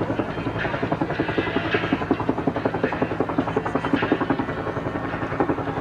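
Helicopter running close by, its rotor beating in a fast, steady chop over the hum of the engine.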